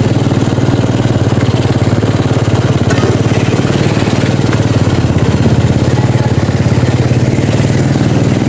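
Small engine running steadily and loud, close by, with an even rapid pulsing and a low hum that does not change.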